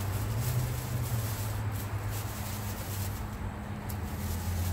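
Gas grill running with a whole striped bass on the grate: a steady low rumble with an even hiss over it.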